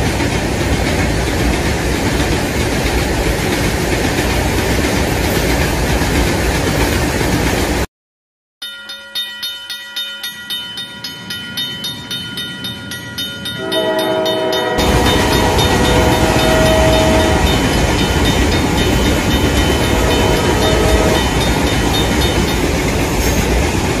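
Cartoon train sound effects: a train running, with a dense steady rumble that cuts off sharply about eight seconds in. A level-crossing bell then clangs in a fast repeating 'kan-kan'. A few seconds later a train horn sounds several notes together, and the running-train rumble returns under it.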